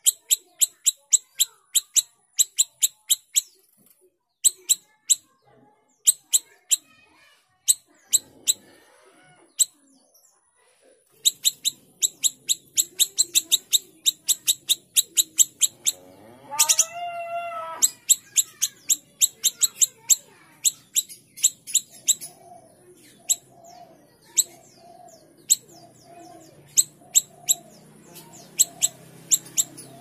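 Caged siri-siri kecil songbird singing hard: a long run of short, sharp, high chipping notes, about three or four a second, broken by brief pauses. Around the middle a lower, drawn-out call rises and falls, and in the last third a lower call repeats about once a second under the chips.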